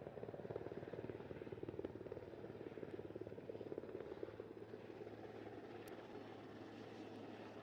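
Rotor chop of a large firefighting tanker helicopter flying overhead: a steady, rapid beat of the blades.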